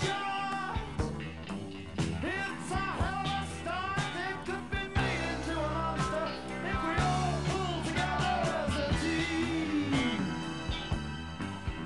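A rock song playing, with a steady beat of drums and bass and a singing voice that slides between notes.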